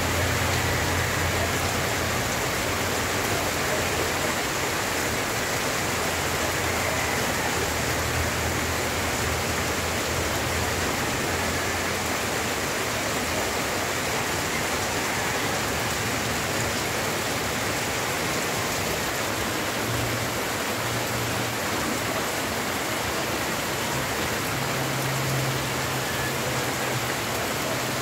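Heavy tropical rain falling steadily on dense foliage, mixed with the rush of muddy floodwater: an even, unbroken hiss.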